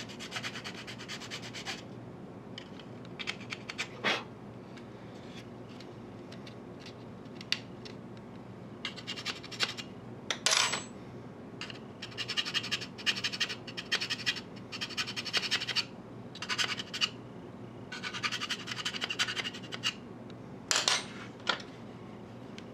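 Small hand file rasping along the edge of a plastic model locomotive shell in short runs of quick strokes, with pauses between runs. The filing levels the edge of an opening cut for a radiator screen.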